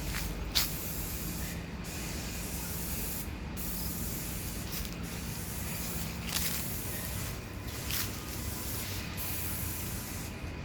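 A sprayer hissing steadily as it sprays waterproof coating, briefly easing off every second or two, with a faint low hum under the first part.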